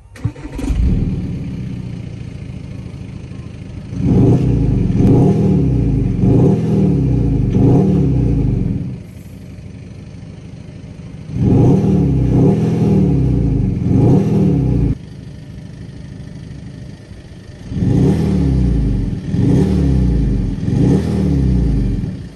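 Exhaust of a 2014 VW Golf GTD's 2.0-litre, 184 PS turbodiesel four-cylinder, idling and blipped through three sets of quick revs with idle between. The first two sets come with the engine sound module switched on, the last with it switched off.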